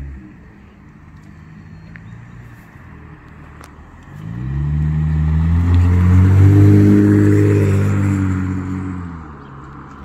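2019 Chevrolet Camaro 1LT's 3.6-litre V6 through a Magnaflow Race Series axle-back exhaust. It runs low and quiet at first, then the exhaust note climbs sharply about four seconds in as the car speeds up and comes close, peaks as it passes, and fades away.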